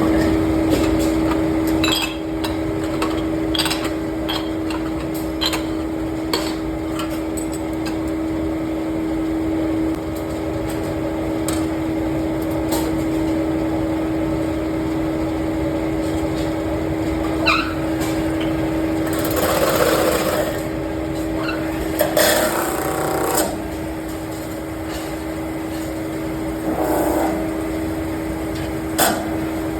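Metal lathe running with a steady hum, with scattered clicks and knocks and a few louder scraping bursts of noise, about two-thirds of the way through and again near the end.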